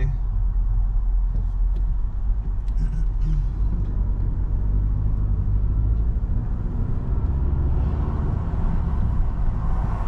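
Inside a moving Ford car: steady engine and tyre rumble from the road, with the engine note rising a little in the second half as the car picks up speed.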